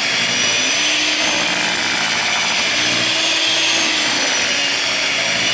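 Vitek electric hand mixer running steadily, its beaters churning thick cake batter in a bowl.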